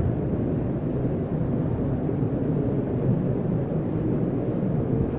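Steady low rumble of room noise from a crowded hall, with no distinct events and no clear words.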